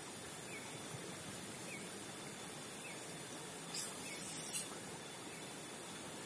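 Outdoor background hiss with a faint short chirp from a small animal repeating about once a second. A brief, louder hiss a little past the middle is the loudest thing.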